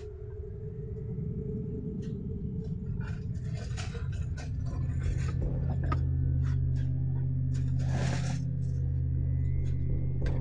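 Wire-mesh cage trap being handled on roof tiles: irregular metallic clinks, rattles and scrapes. Under them a steady low hum builds through the first few seconds and then holds.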